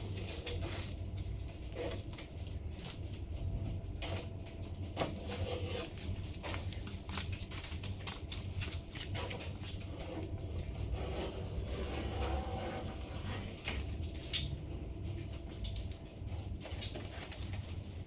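Masking tape and masking paper being peeled off the edges of a ute tray: irregular crackling rips and paper rustling, over a steady low hum.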